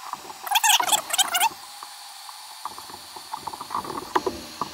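Heat gun running with a steady hiss while a screwdriver stirs melted HDPE into a crack in a polyethylene kayak hull. Two loud runs of high squeaking come between about half a second and a second and a half in, and softer scraping ticks follow near the end.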